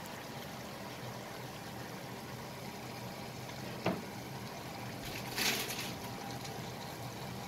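Chicken adobo simmering in a frying pan beside a pot of soup water heating on the stovetop: a steady, even hiss of cooking. There is a single sharp click about four seconds in and a brief louder hiss a little after five seconds.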